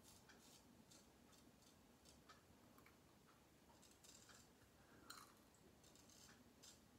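Dubl Duck Goldedge straight razor faintly scraping one day's stubble through lather, in a series of short scratchy strokes.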